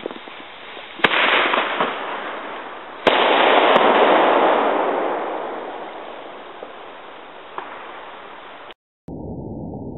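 A homemade firecracker going off: a sharp crack about a second in, then about two seconds later a louder bang whose rumble fades away over several seconds.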